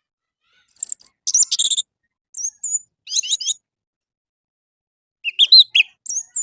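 Orange-headed thrush singing: about six short bursts of high, quickly varied whistled and warbled phrases, with silent gaps between and the longest pause around the middle.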